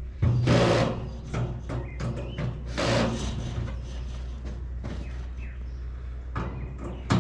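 Galvanized steel raised garden bed being handled: a loud scraping thud about half a second in, another about three seconds in and a third at the very end, with small metallic clicks and rattles between them.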